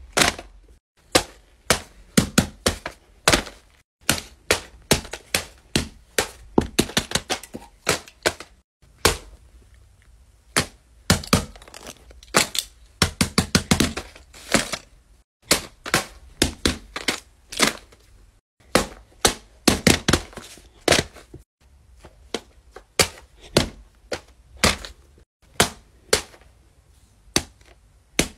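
Fidget toys being pressed and popped: a long series of sharp pops and clicks in quick runs, with short breaks between them.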